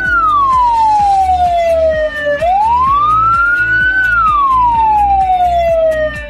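Ambulance siren on a slow wail: the pitch rises for about a second and a half, then falls slowly for about two seconds, and repeats. This is the slowest siren pattern, said to mean an ambulance or hearse carrying a dead body. A faint steady beat of background music runs underneath.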